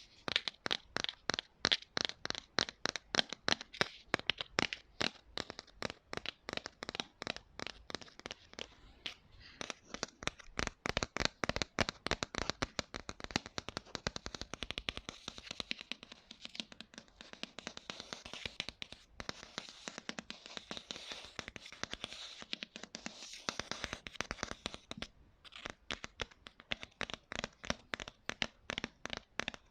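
Rapid tapping and knocking on hard props for ASMR, a steady stream of sharp taps, several a second, that does not stop.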